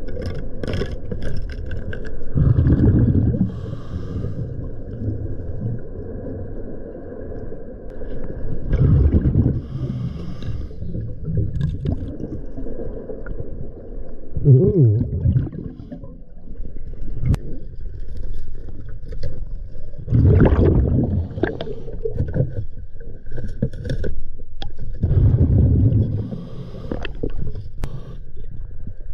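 Scuba diver breathing underwater through a regulator: five bubbly exhalation bursts, about every five to six seconds, with a faint steady high hum and a few sharp clicks between the breaths.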